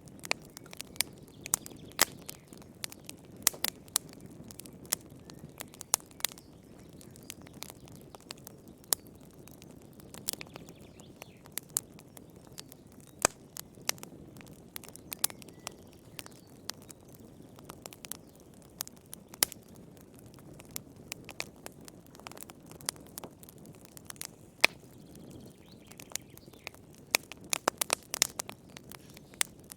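Wood fire burning in a fireplace: irregular sharp crackles and pops over a low steady hiss of the flames, with a quick flurry of pops near the end.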